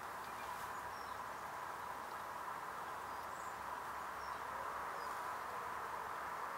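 Steady outdoor background hiss, with a few faint, short high bird chirps.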